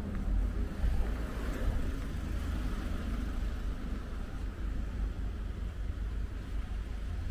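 Steady low rumble of outdoor street ambience, a little louder in the first couple of seconds.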